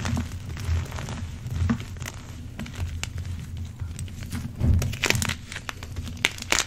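NEXO gym chalk blocks crunching and crumbling as bare hands squeeze and crush them into powder, a steady run of small sharp cracks, louder about five seconds in and again near the end.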